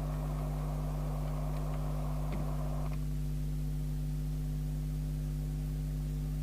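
Steady low hum with a hiss over it that cuts off abruptly about three seconds in, with a faint click just before.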